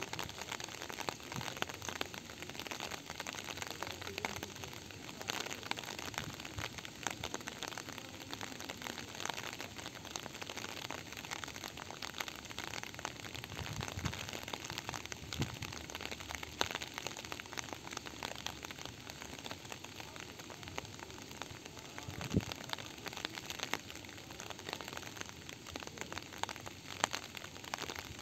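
Steady rain falling: an even hiss with many close drops landing as sharp, separate ticks.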